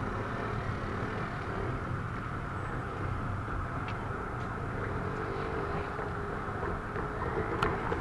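Distant Keikyu electric train moving slowly through the depot yard: a steady rumble, with a faint steady tone joining in the second half.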